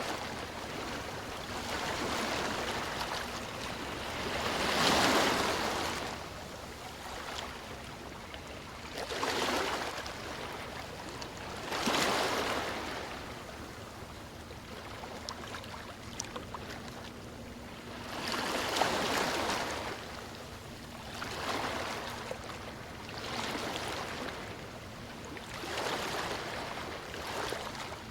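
Sea waves breaking and washing onto a beach, a swell of surf every few seconds over a steady background wash.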